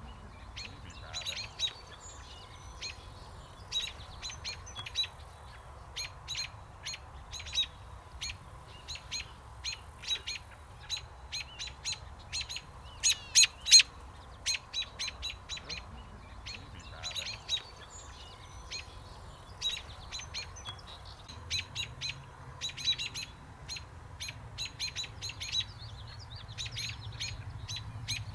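American robins giving sharp, repeated alarm calls, short notes often in quick runs of several, loudest about halfway through: the scolding of robins mobbing a perched young American kestrel near their nest.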